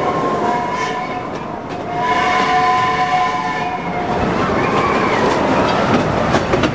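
Small amusement-park train rolling along its track: a steady rumbling clatter with high steady tones that fade about a second and a half in and return, and a few sharp clicks near the end.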